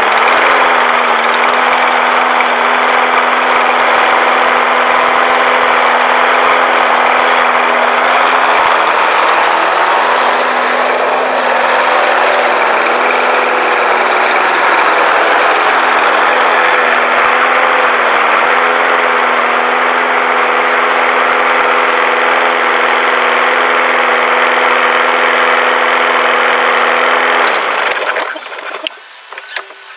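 Briggs & Stratton 625EX single-cylinder lawn mower engine running at a steady speed, its pitch holding level with no rise and fall, so it is no longer surging. It stops shortly before the end.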